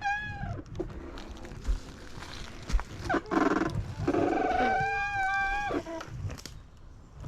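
Electric dirt bike motor whining in short throttle bursts while the bike is eased around a fallen tree. The pitch holds steady for about a second, then drops sharply as the throttle closes, with a brief rough clatter about three seconds in.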